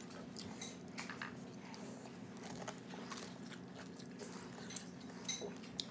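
Faint, close chewing and soft mouth clicks of a person eating rice and a bean-sprout spring roll (lumpiang togue) by hand, coming as scattered short clicks.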